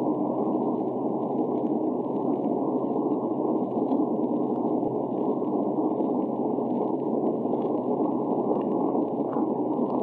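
Submarine trim pump running, picked up underwater by a hydrophone: a steady, muffled rushing noise with no clear pitch.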